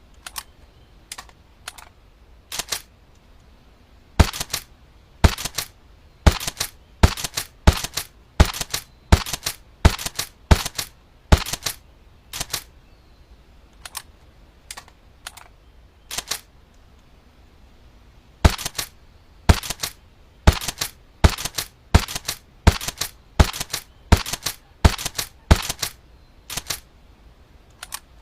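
Airsoft shotgun firing: sharp snaps in two long runs, a little faster than one a second, with fainter clicks between and a few lone clicks before the first run.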